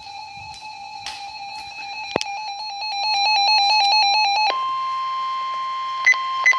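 Electronic emergency alert tones from a weather alert radio: a buzzy steady beep that grows louder, a click about two seconds in, then the beep pulsing rapidly for about two seconds before switching to a steady higher tone, the weather radio warning alert tone, with short beeps over it near the end. The tones announce a severe weather warning broadcast.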